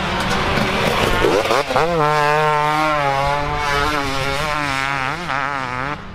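Motocross dirt bike engines revving hard as bikes ride the track. The pitch sweeps up about a second in, then holds a wavering note as the throttle is worked, and it drops away near the end.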